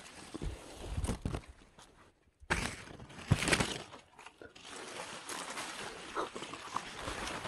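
Leaves and branches rustling and crunching as someone pushes through fruit trees, in a few uneven bursts with the loudest about three seconds in, then a softer steady rustle.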